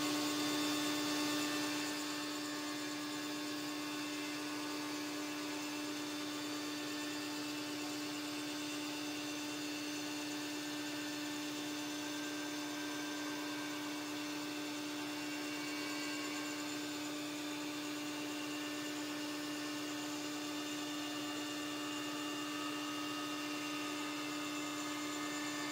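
Tool post grinder spinning at about 6,000 RPM, internally grinding the taper of a 1950s Benchmaster horizontal mill's spindle, which turns the other way at 400–600 RPM, with a shop vacuum running for the grinding dust. Together they make a steady hum with one strong low tone and a hiss above it.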